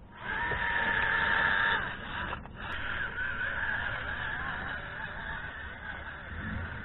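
Whine of a 1/24-scale RC crawler's stock brushed electric motor and gears under throttle from a cheap brushed ESC without brake. A steady tone that wavers in pitch as the throttle changes, with a short break about two and a half seconds in.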